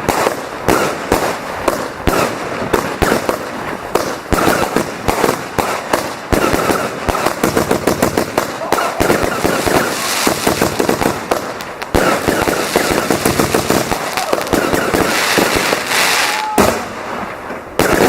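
Consumer firework batteries going off: a rapid, continuous string of bangs and pops several per second, with stretches of dense crackling.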